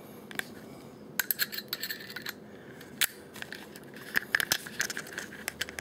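Small metal tool clicking and scraping against a Kel-Tec PF-9 pistol's parts as a small part is levered up and over into place on top of the frame: a run of light metallic clicks, dense for about a second early on, then scattered.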